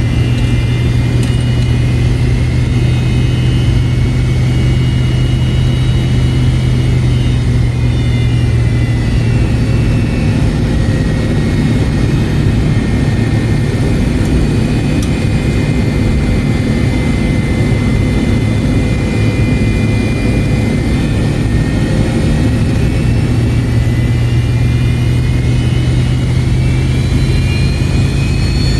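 Cabin noise of an MD-88's rear-mounted Pratt & Whitney JT8D turbofan at taxi power, heard from a rear seat with only the left engine running: a steady low drone under a high whine. The whine drops in pitch about a third of the way in and rises again near the end as the engine is throttled back and then spools up.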